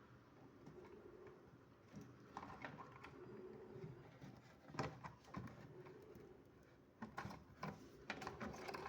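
Faint scattered clicks and taps of hands working on a kitchen chimney's wiring and parts, with a few sharper knocks in the second half.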